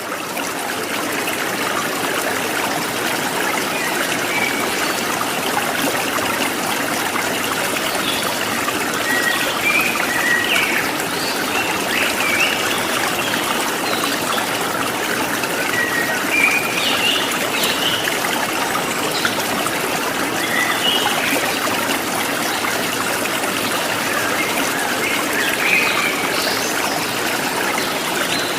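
Stream water running and trickling steadily, with scattered short bird chirps above it.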